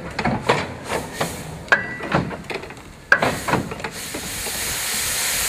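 Hudswell Clarke 0-6-0ST saddle tank steam locomotive working slowly, with a chuff of exhaust about twice a second and a short squeal with some of them. From about four seconds in the chuffs give way to a steady hiss of escaping steam that grows louder.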